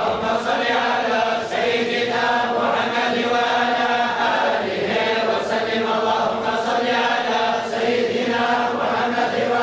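A group of male voices chanting together in unison, in long drawn-out sung lines, like a collective religious recitation.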